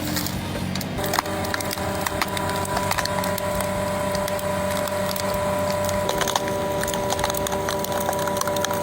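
Wood cracking and splintering repeatedly as a machine splits it, over a steady machine hum.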